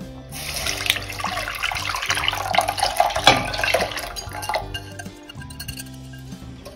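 Liquid marinade poured from a glass bowl into a stainless steel wok, a splashing pour for about four and a half seconds that then tapers off to a faint trickle.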